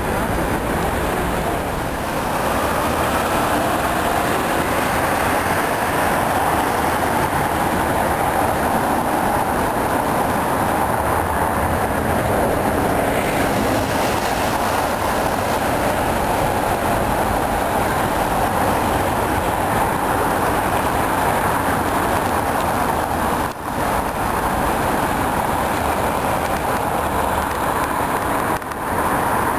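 Steady, even roar of city street traffic, with two brief drops near the end where the clips change.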